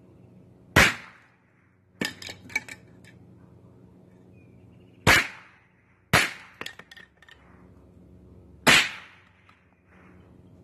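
Rossi RS22 .22 LR semi-automatic rifle firing slow single shots: three loud reports about four seconds apart. After the first two, a second later, comes a quick run of sharp clinks and clatter from hits on the spray cans and steel targets.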